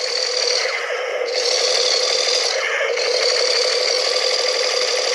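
Battery-powered toy gun running: a continuous fast mechanical rattle, with a high buzz that cuts out and comes back twice.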